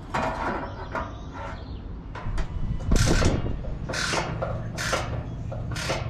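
A metal boat-trailer fender being fitted and bolted to its bracket with a wrench: a series of short metallic scrapes and clanks, roughly one a second, the loudest about three seconds in.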